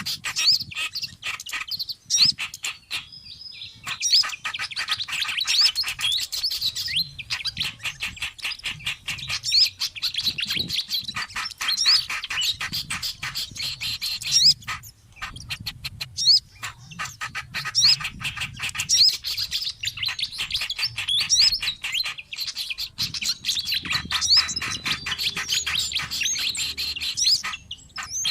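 Bird-lure recording of small songbirds calling noisily: rapid, dense chattering chirps and short rising whistles, nearly continuous, broken by a few brief pauses.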